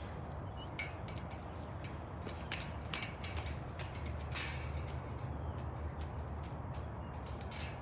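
Footsteps crunching over dry leaf litter: irregular crackles and snaps over a steady low rumble.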